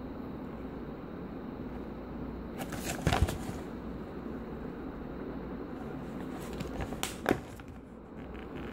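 Folded paper instruction sheet being handled and unfolded: two short bursts of paper rustling, about three seconds in and again about seven seconds in, over a steady low hum.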